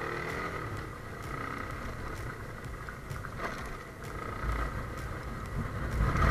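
RKS150 motorcycle engine running as the bike rides slowly, with low wind rumble on the microphone growing stronger after about four seconds.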